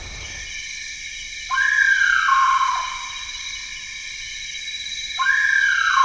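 Night rainforest ambience: a steady chorus of high-pitched insect trills, and twice an unseen animal gives a loud call that starts high and drops to a lower held note, each call lasting over a second.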